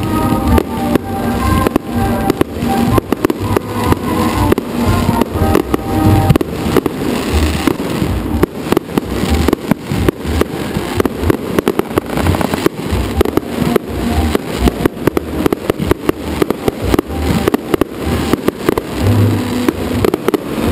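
Fireworks display: a dense run of rapid bangs and crackles from bursting aerial shells and spraying fountains, with music playing underneath.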